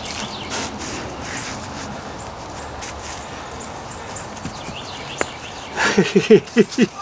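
Hands digging and rustling through loose soil in a garden container, with dirt scraping and small knocks as sweet potatoes are felt for. Near the end, a quick run of about six short pitched vocal sounds.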